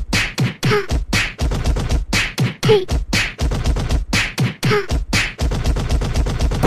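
Beatboxing: a quick, steady beat of mouth-made kick drum thumps and hissing snare hits, several strokes a second.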